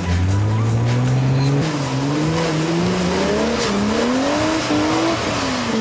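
A 4x4 off-road vehicle's engine revving, its pitch climbing, then rising and falling repeatedly as the throttle is worked.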